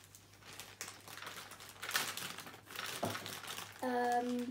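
Crinkling and clicking of small plastic containers and packaging being handled. Near the end comes a short, steady, held hum from a girl.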